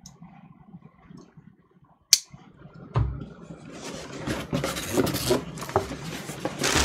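A sharp click about two seconds in and a dull thump a second later, then packing paper and a cardboard shipping box rustling and crinkling as they are handled.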